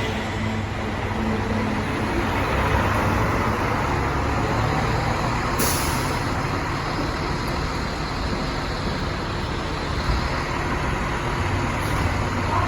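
Heavy diesel fire trucks running on the road, a steady rumble with road and traffic noise. About halfway through there is a short hiss, typical of an air brake.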